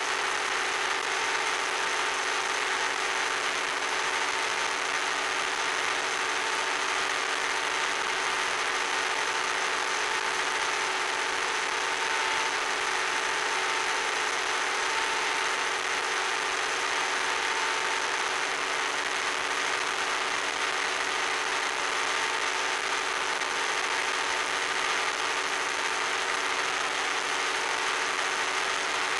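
RC plane's motor and propeller drone steadily under a hiss of wind rush, as picked up by the onboard FPV camera and sent over the analog video link. The sound holds at one even level with a few constant tones and does not change.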